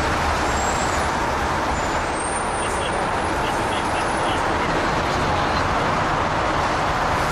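Steady rumble and hiss of a fire engine's diesel engine idling, heard from inside its cab.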